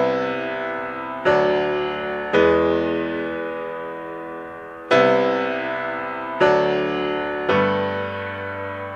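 Background music: slow piano chords, six struck one after another, each left to ring and fade before the next.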